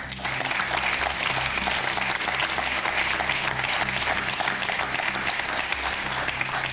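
A group of people applauding, starting suddenly and keeping up a steady clapping throughout.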